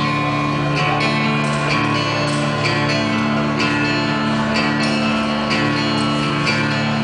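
Steel-string acoustic guitar strummed alone in a steady pattern, its chord ringing on between the strokes, as a song's opening before the vocals come in.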